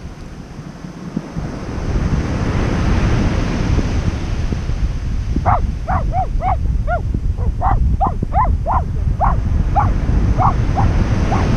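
Surf washing onto the beach with wind on the microphone. From about five seconds in, a quick run of short, high animal calls repeats about three times a second.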